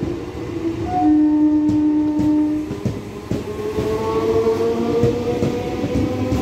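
EMU local train running past a platform: its electric motors give a whine that holds steady, then rises slowly in pitch from about three seconds in as the train gathers speed. Wheels knock over the rail joints.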